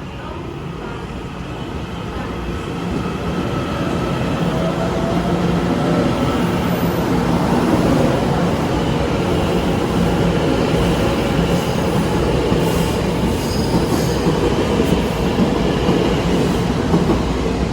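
TEMU2000 Puyuma tilting electric multiple unit pulling out of the station, its wheel and running noise growing louder over the first several seconds as it gathers speed and then holding steady, with a few faint high squeals in the second half.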